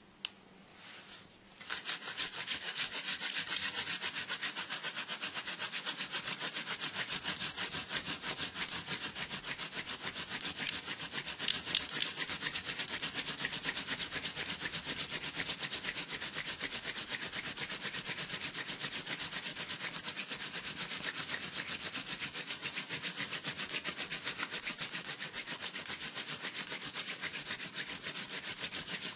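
Hand-drill friction fire: a Royal Empress tree (paulownia) spindle spun between the palms, grinding in the notch of a balsam fir hearth board, a fast, steady, hissing rub that starts about two seconds in. A few sharper clicks come around eleven and twelve seconds in.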